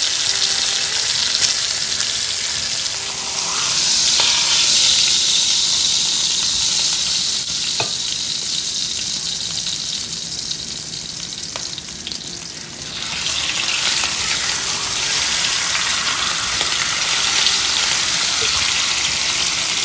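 Pork chops sizzling in butter in a pan over high heat: a steady hiss that swells about four seconds in, eases off, then rises sharply again a little past halfway. A few light clicks sound over it.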